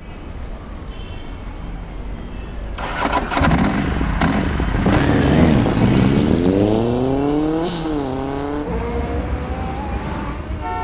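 Motor vehicle engine accelerating over traffic noise, its pitch rising, dipping briefly about three-quarters of the way through and climbing again. A few sudden sharp sounds come about three to four seconds in.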